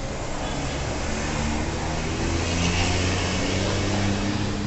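Street traffic with a bus engine running close by, its low hum setting in about a second in and growing louder toward the middle.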